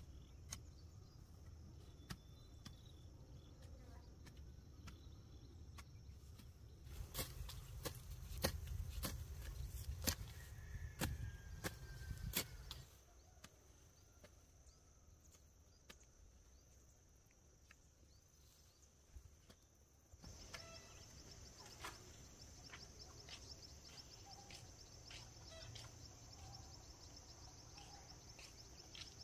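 Outdoor field ambience with a steady high insect drone that turns into a fast pulsing buzz in the second half. For about five seconds in the middle there are sharp knocks over a low rumble.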